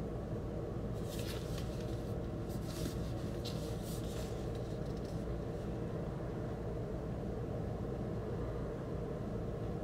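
Cardboard gatefold record jacket rustling as it is handled and turned over, a few short scrapes in the first half, over a steady low hum.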